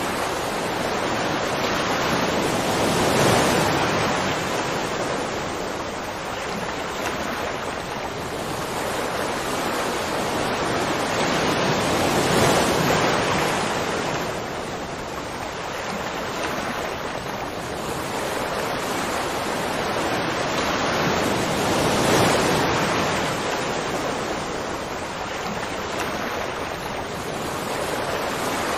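Ocean surf: waves breaking and washing up a beach in a steady rush of foaming water, swelling three times about nine seconds apart as each wave comes in.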